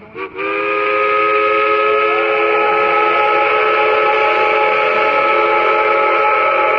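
Geared steam locomotive's steam whistle: a brief blip, then one long, loud, steady blast with several notes sounding together as a chord.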